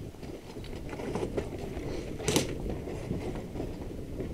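Several people's footsteps crunching and shuffling over concrete rubble and grit, with small knocks of gear. About two seconds in there is one sharp crack, the loudest sound.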